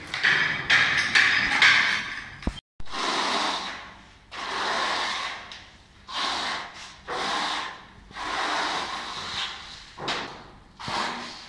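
Steel notched trowel scraping and combing tile adhesive across a concrete floor in repeated strokes, about seven of them, each roughly a second long.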